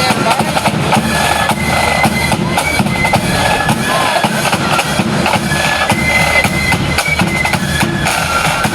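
Marching flute band playing a tune on flutes, with snare and bass drums beating time.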